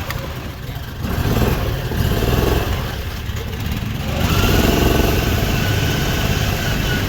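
Riding lawn mower engines running under throttle, stock-class racing mowers. The engine noise picks up about a second in and again about four seconds in, when a steady whine joins it.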